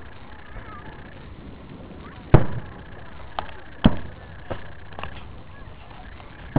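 Fireworks bursting in the air: two loud bangs, about two and a third and about four seconds in, each trailing off in a short echo, with fainter pops between and after them.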